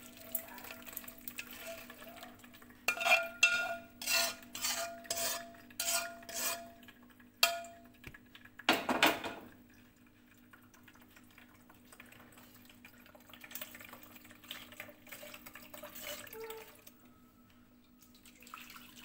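Metal spoon and spatula clinking and scraping against a wok and a stainless steel mesh strainer while chicken cooking broth is strained: a quick run of sharp, ringing clinks, then a longer scrape about nine seconds in, with softer handling after. A steady low hum runs underneath.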